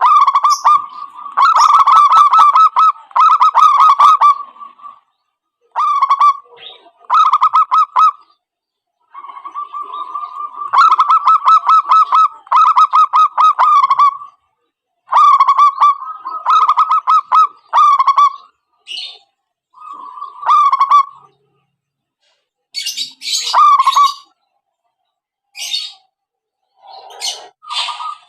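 Zebra doves (perkutut) cooing in phrases of fast staccato coos, one phrase after another with short gaps. Higher, thinner calls come in over the last few seconds.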